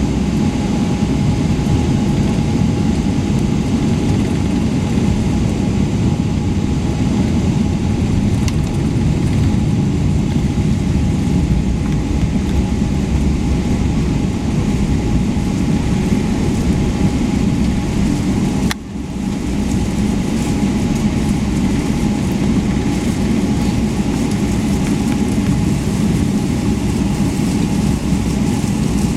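Steady cabin noise inside a Boeing 777-300ER on the ground: a continuous low rumble from the engines and the aircraft rolling, with a faint steady hum above it. Just over halfway through comes a single click, and the sound drops briefly before returning.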